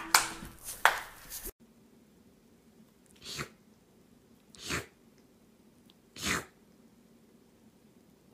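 Two loud, short noisy bursts in the first second and a half. Then a kitten sneezes three times, about a second and a half apart, each sneeze a soft, short burst.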